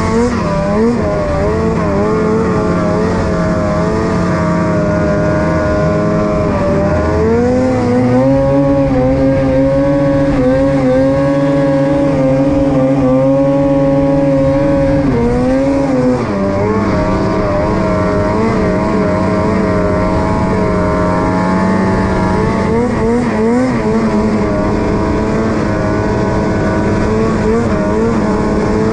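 Snowmobile engine running at high, sustained revs as the sled skims across open water. Its pitch climbs about a quarter of the way in, holds higher for several seconds, then drops back, with brief wavers near the end.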